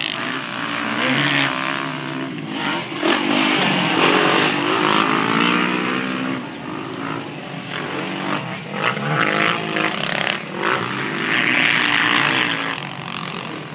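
Motocross dirt bike engine revving up and down as the rider works the throttle round the track, its pitch rising and falling again and again.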